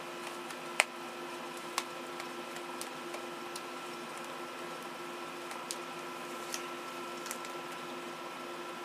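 Steady electrical hum of room tone, with a handful of faint, sharp clicks scattered through it.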